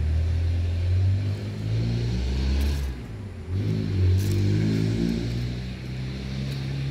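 A motor vehicle engine running close by, its pitch rising and falling as it revs.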